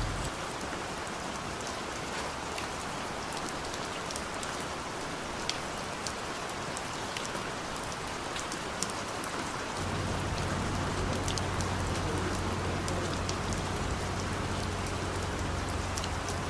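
Steady rain falling, with scattered ticks of individual drops. A low steady hum joins about ten seconds in.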